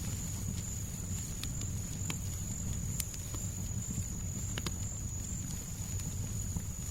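Fireplace fire crackling, with a handful of sharp, sparse pops over a deep, steady noise bed. A thin, steady high-pitched tone runs throughout.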